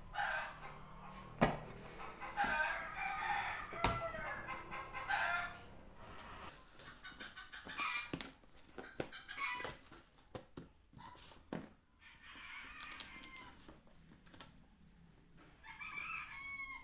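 Chickens clucking and a rooster crowing in several bursts of calls, mixed with sharp clicks and scrapes of a kitchen knife slicing the packing tape on a cardboard box.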